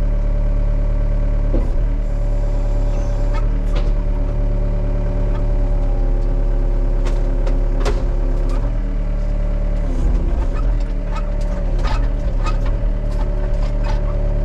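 Excavator's diesel engine running steadily under hydraulic load, its pitch sagging briefly about ten seconds in, with scattered sharp clicks and cracks.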